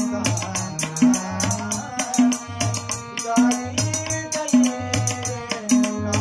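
Kumauni classical Holi song: a man's voice singing over harmonium, with a hand drum beating out a steady rhythm and quick, light percussion strokes.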